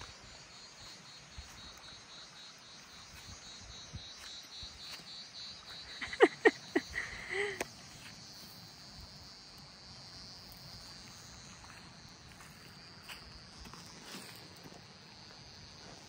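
Crickets chirping steadily in a high, pulsing trill. About six seconds in, a quick run of short, sharp sounds and a brief pitched call is the loudest thing heard.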